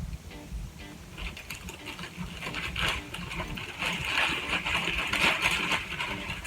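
Rustling and crinkling of a nylon bag being handled and moved about, growing denser and louder about four seconds in, with small clicks and knocks in between.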